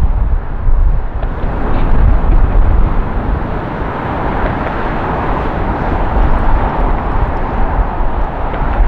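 Airbus A320-200 jet engines at takeoff thrust through the takeoff roll and lift-off: a loud, steady rush of jet noise over a deep rumble, growing a little brighter about halfway through.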